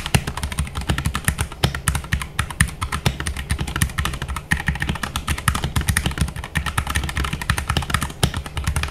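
Fast, continuous typing on a Keychron K8 aluminium-frame mechanical keyboard fitted with Gateron Brown switches and PBT keycaps: a dense stream of keystroke clicks.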